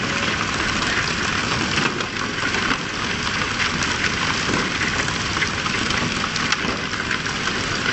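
Fishing boat's engine running steadily, with splashing water and short sharp spatters throughout as tuna are hauled out of the sea on poles.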